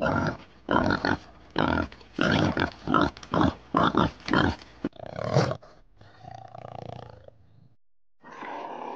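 Pigs grunting in a quick run of short grunts, about three or four a second. The grunting gives way to a softer sound about six seconds in and stops briefly before a different, steadier animal sound begins near the end.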